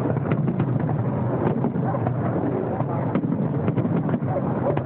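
Fireworks display: a steady low rumble with many small crackles and pops scattered through it, and wind buffeting the microphone.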